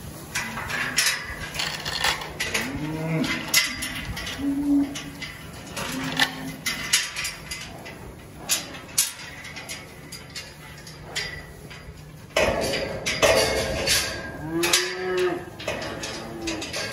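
Calves bawling several times in short calls, among scattered sharp knocks.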